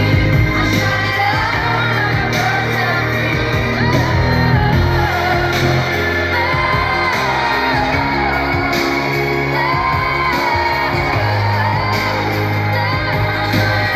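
Live pop music: a female lead singer with a band, sustained bass notes under a sung melody that rises and falls, amplified through a concert sound system, with shouts and whoops from the crowd.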